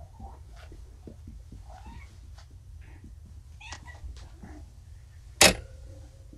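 Young kittens meowing faintly a few times, drowsy on pain medication after their spay and neuter surgery. A single sharp knock about five and a half seconds in is the loudest sound.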